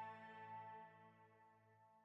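Closing background music: a single held chord fading out to silence.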